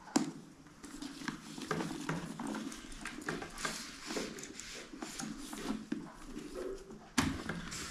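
Handling noise of an SMK Typhoon full-face motorcycle helmet being turned over in the hands: rustling and scattered light taps and clicks from the shell and chin strap. There is one sharper knock right at the start.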